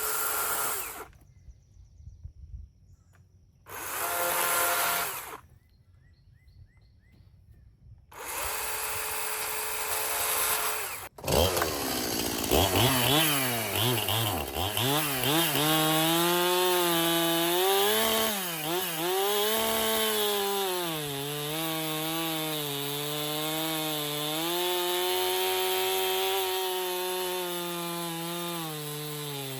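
Stihl chainsaw: two short revs, then from about twelve seconds in it runs steadily through a cut into a firewood log. Its pitch dips and recovers again and again as the chain bogs under load.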